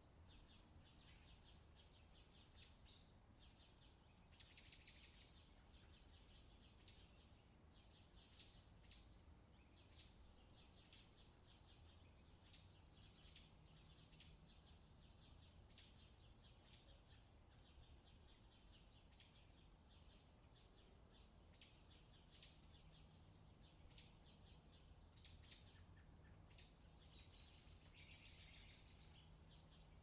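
Faint rural outdoor ambience with small birds chirping: short high chirps every second or so, with a couple of busier bursts of song, over a quiet background and a faint low hum.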